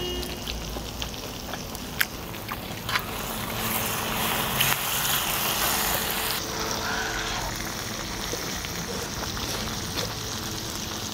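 Pork belly and a bone-in pork chop sizzling on a large pot-lid griddle, with a few light clicks of metal tongs. The sizzle swells louder a few seconds in, then drops back suddenly just past the middle.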